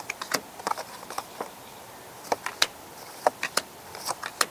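Tarot cards being handled: irregular light clicks and taps of card stock, a couple of dozen over a few seconds.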